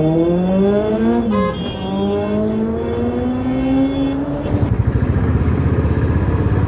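Motorcycle engine accelerating, its pitch climbing, dropping at a gear change about a second and a half in, then climbing again; from about four and a half seconds in it turns into a rougher, steady running sound.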